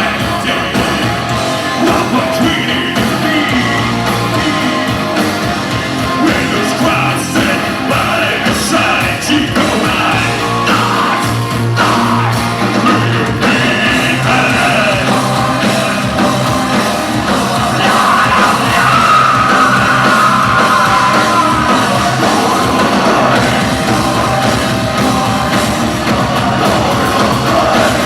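Industrial metal band playing loudly live, with singing and yelled vocals over the full band. A sustained melodic line rises above the mix midway through.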